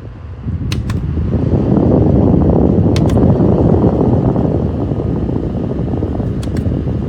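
Portable neck fan running close to the microphone, a loud steady rushing of its fan and airflow that swells in about half a second in. Four pairs of light clicks sound over it.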